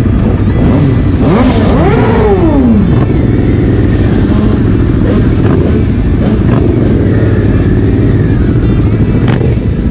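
Several motorcycle engines running and being revved as they warm up, their pitch rising and falling in quick sweeps during the first few seconds, over a steady engine rumble, with music playing.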